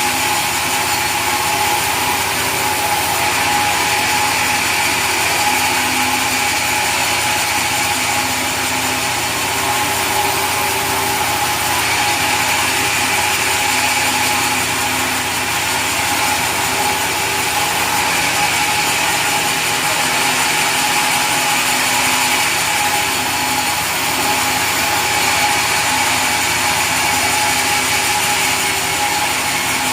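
Sawmill saw machinery running steadily and sawing mahogany timber, with a constant mechanical whine over a dense rushing noise.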